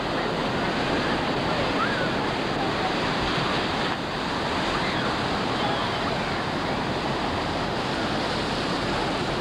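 Ocean surf breaking and washing in the shallows: a steady rush of wave noise.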